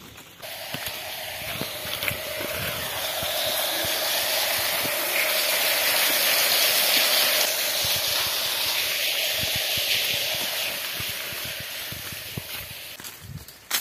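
A stream of water gushing into an open well and splashing onto the water surface far below. It is a steady rushing noise that grows louder, then fades again near the end.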